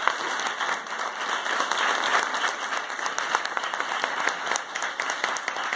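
An audience applauding: many people clapping steadily and without a break.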